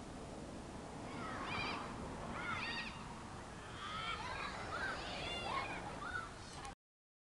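Children's high-pitched shouts and calls, several short rising-and-falling yells one after another, over the general noise of play on the pitch; the sound cuts off suddenly near the end.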